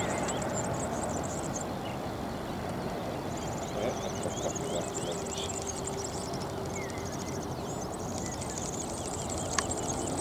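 Distant rumble of a Boeing 787-9 jet airliner rolling out on the runway just after touchdown, a steady noise with no distinct tone. Small birds chirp in quick high-pitched phrases over it, and there is a single sharp click near the end.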